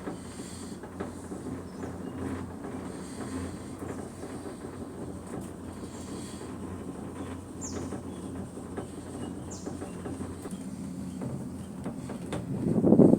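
Skyrail gondola cabin riding along its cableway: a steady low rumble and hum of the car running on the cable. Two short, high, falling whistles come midway, and the rumble swells louder near the end.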